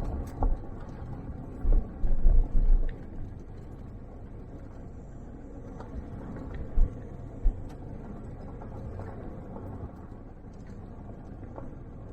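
Vehicle driving along a dirt road: a steady low rumble with a few short low thumps, the loudest in the first three seconds and a couple more about seven seconds in.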